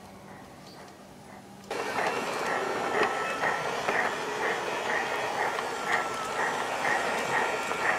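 Piko G-scale model of a BR 80 steam tank locomotive running slowly, with an electric motor and gear whine under a rhythmic steam chuff about two or three times a second. The sound gets suddenly louder about two seconds in as the locomotive is close by.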